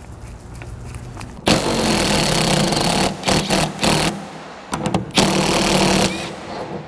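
Impact wrench run in several short bursts, the longest about a second and a half, loosening the strut fasteners to remove the front struts.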